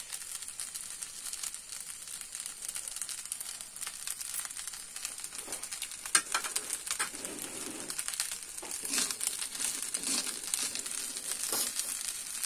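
Fried rice with corn and chicken sizzling and crackling in a nonstick wok on the flame, with a few sharp clicks partway through.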